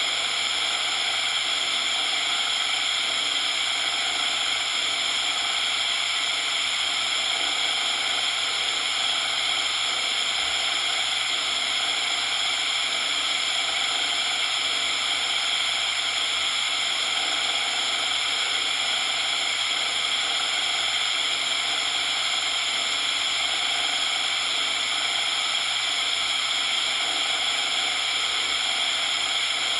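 Steady synthetic coloured-noise hiss, unchanging in level, weighted toward the upper frequencies with little low end.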